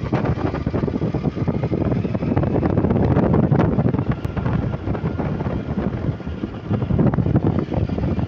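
Steady rumble and rush of a moving vehicle, with wind buffeting the microphone.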